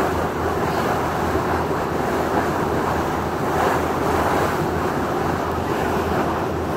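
Wind buffeting the microphone and water rushing past a moving ferry, with the ferry's engine running as a steady low hum underneath.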